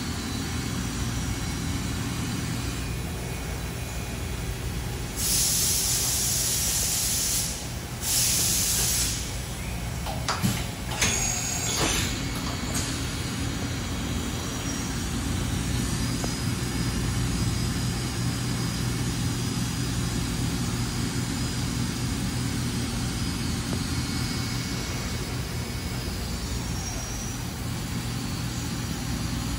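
Kitamura 4XT five-axis vertical machining center running with a steady hum, giving two loud bursts of compressed-air hiss a couple of seconds apart, followed by a few sharp clicks.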